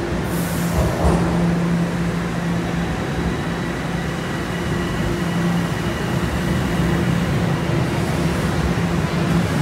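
TTC Toronto Rocket subway train alongside the platform, giving a steady low hum with a faint high whine over a wash of station noise, and a short hiss about half a second in.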